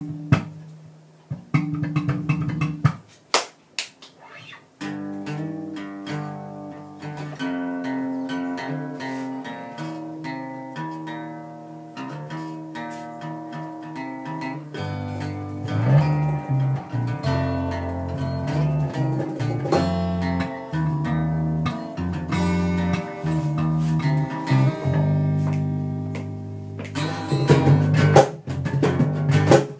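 Acoustic guitars playing an instrumental intro: a few scattered plucks, then steady picked chords from about five seconds in. A bass guitar joins with low notes about halfway through, and louder percussive strokes come in near the end.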